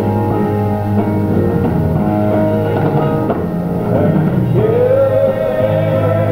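Live concert recording of a rock band with organ and singing; about four and a half seconds in, a voice slides up into a long held note.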